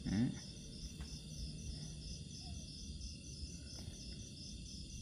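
Faint, steady chirping of insects, probably crickets, as a regular pulsing high trill, with a brief low voice-like sound right at the start.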